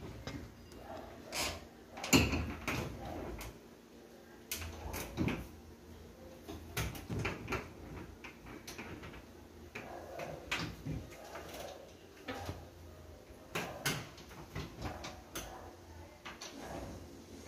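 Aluminum-framed glass-panel kitchen cabinet doors being opened and closed by hand: a string of light clicks and knocks from the doors and catches, the loudest knock about two seconds in.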